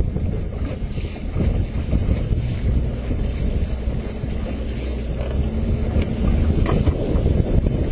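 Wind buffeting the camera's microphone over open sea, with water splashing and sloshing against the hull of a small boat.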